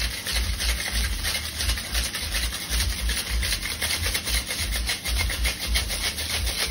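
Ice rattling rapidly in a metal cocktail shaker during a hard, continuous shake, the ice breaking up into crushed shards.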